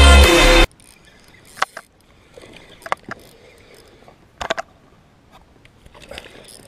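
Loud electronic background music that cuts off abruptly under a second in. Then quiet handling noise from a fishing rod and spinning reel in a small inflatable boat: a few sharp clicks and knocks with faint rustling between them.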